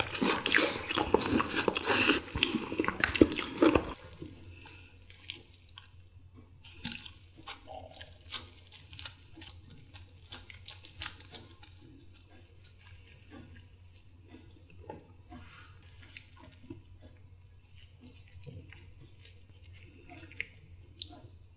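Loud chewing and smacking of boiled chicken eaten by hand, stopping suddenly about four seconds in. Then much quieter: soft wet squishes and drips as gloved hands tear chicken meat apart into a bowl of broth, with scattered light clicks and taps of a wooden spoon in the soup.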